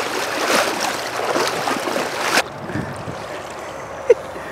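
Legs sloshing and splashing as someone wades fast through a shallow river. About halfway through it cuts abruptly to the quieter, steady rush of the river, with a single short click near the end.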